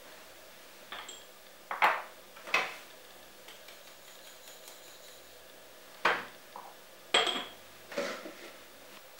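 Kitchen dishes and utensils clinking and knocking on a counter: about six separate clinks spread unevenly, some with a brief high ring.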